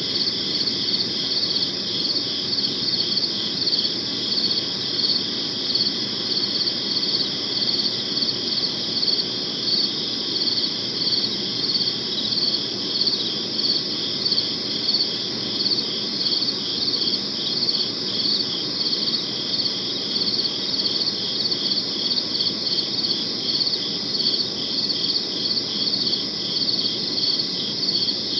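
Crickets chirping continuously in an even, pulsing rhythm, over a faint low background noise.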